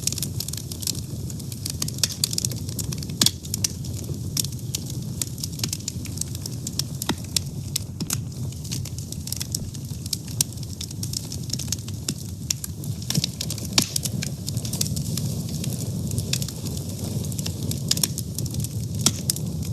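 Fire burning with frequent sharp, irregular crackles and pops over a steady low rumble of flame.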